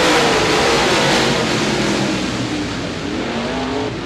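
A pack of dirt-track modified race cars running at full throttle just after the green flag, several V8 engines overlapping and rising and falling in pitch as the cars accelerate through the turn. The sound eases slightly near the end.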